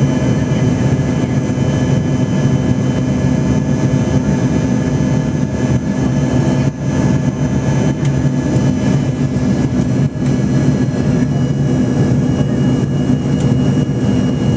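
Cabin noise of a jet airliner climbing after takeoff: the engines drone steadily with a constant low hum and several steady whining tones over the rush of air along the fuselage.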